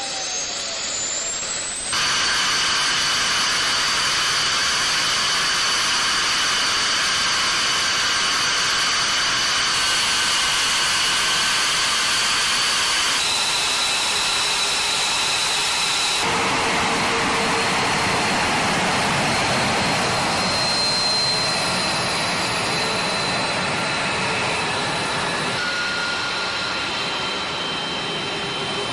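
F-22 Raptor's Pratt & Whitney F119 turbofans running, a steady jet roar with high-pitched turbine whines over it; the sound shifts abruptly several times as different recordings are spliced together.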